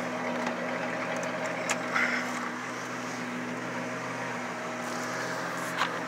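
1995 Dodge Intrepid's straight-piped V6 idling steadily, with a few light clicks over it.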